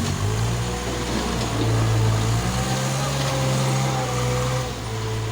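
An engine running steadily, its speed rising a little about a second in and easing back down near the end.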